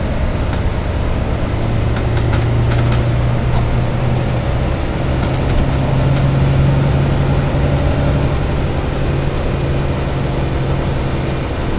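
Volvo B9TL double-decker bus running with a steady low humming noise. The hum rises a little in pitch about halfway through and drops back near the end, with a few faint clicks about two seconds in.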